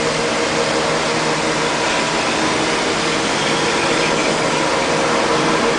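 Kasto HBA 360AU automatic horizontal band saw running, a steady machine hum with an even hiss over it.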